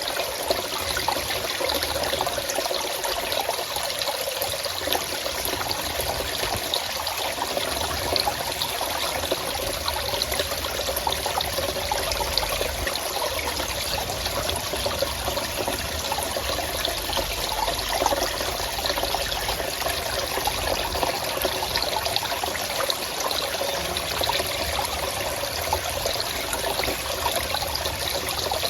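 Forest stream of running water flowing steadily, with no pauses or changes.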